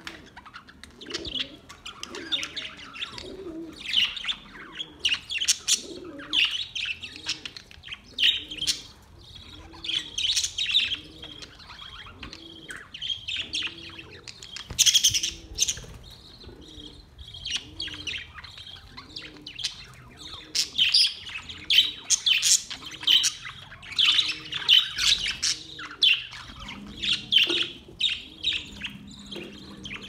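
A flock of budgerigars chattering, with many overlapping chirps and warbles coming in louder bursts every second or two. A low call repeats about once a second underneath.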